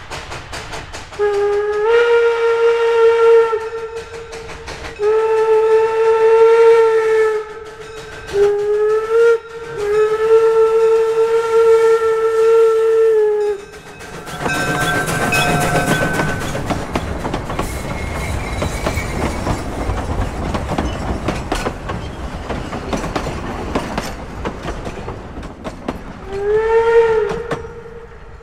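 Steam whistle of WW&F No. 9, a two-foot-gauge steam locomotive, blowing long, long, short, long, the grade-crossing signal, each blast sliding up to pitch as it starts. The locomotive and its cars then run past close by with a loud rumbling clatter, and one more short whistle blast comes near the end.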